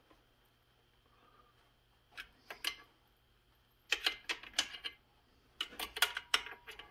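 Light clicks and taps of a new spark plug and its plug cap being handled on a McCulloch Super Pro 70 chainsaw, in short clusters that start about two seconds in and grow busier after about four seconds.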